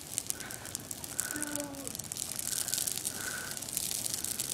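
Fire burning through a mass of dry pine needles in a stripped tree, crackling densely with many small sharp pops.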